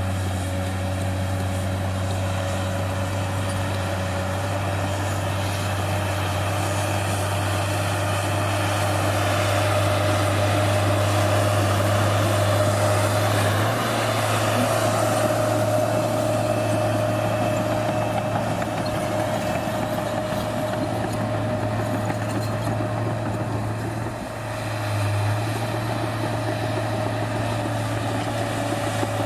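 New Holland D180C crawler dozer's diesel engine running steadily under load, heard from inside the cab, with a brief dip in loudness about three-quarters of the way through.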